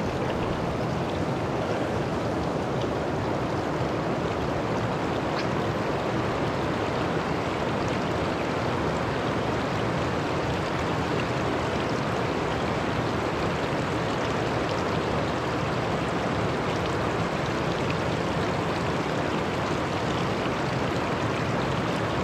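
River water rushing steadily, a continuous even wash of flowing water.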